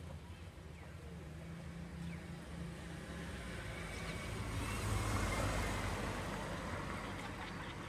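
A small car passing close by: engine and tyre noise swell to a peak about five seconds in, then fade as it drives away.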